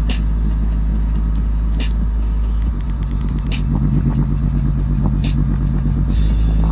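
JBL Xtreme 2 and JBL Charge 4 portable Bluetooth speakers, linked together, playing a bass test track loudly: a steady, very deep bass that drops lower about two and a half seconds in, with a sharp hit roughly every second and three-quarters.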